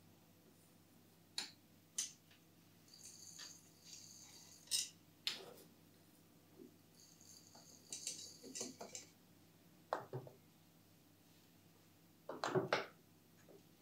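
Metal spoon scooping coarse sea salt crystals from a glass jar and tipping them into a wooden salt grinder: light clinks of spoon on glass and a crackly trickle of crystals falling in, twice. Near the end, a few knocks as the wooden grinder is set down on a wooden tray.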